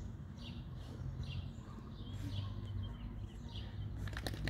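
Small birds chirping repeatedly over a steady low rumble, with a brief cluster of sharp clicks about four seconds in.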